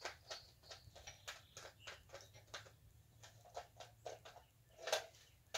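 A string of faint, quick clicks, a few a second, with a louder one near the end, from hands handling rifle cartridges and gear.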